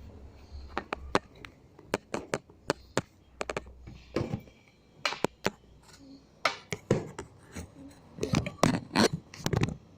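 Handling noise: irregular knocks, taps and clatter of objects moved about close to a phone's microphone while the phone is propped up, busiest in the second half.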